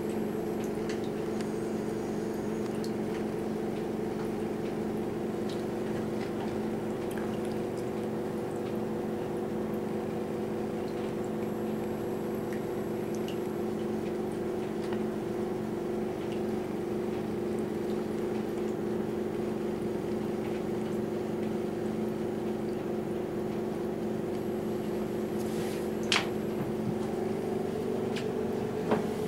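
Homemade tornado vortex machine running: a steady hum with several held tones, over a watery burble from its ultrasonic mist maker in water. A single sharp click about 26 seconds in.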